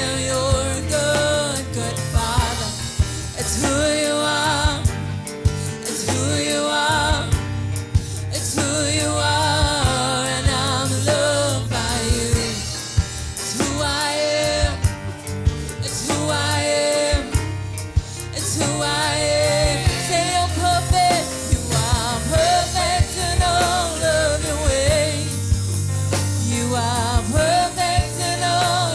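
Church worship music: a voice singing over a band, with a drum kit keeping the beat.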